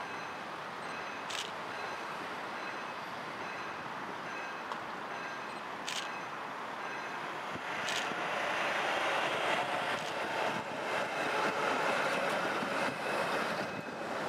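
A coupled pair of Gothenburg M29 trams (Hägglund & Söner) running along the rails toward the listener and passing close by, the running noise growing louder about halfway through and staying loud until near the end. A few sharp clicks cut through.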